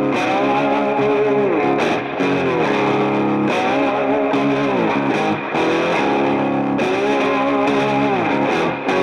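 Background music: distorted electric guitar holding chords, with notes sliding down in pitch every couple of seconds.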